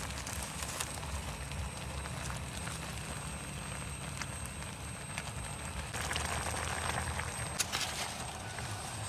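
Portable gas canister stove burning steadily under a pot, with a fork clicking and scraping against the aluminium pot as noodles are stirred. The scraping and clinking get louder in the last few seconds.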